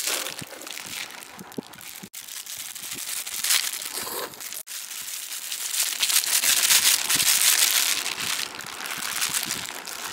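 Thin plastic takeaway bag crinkling as it is handled, opened and tipped out over a plate, loudest in a long stretch past the middle.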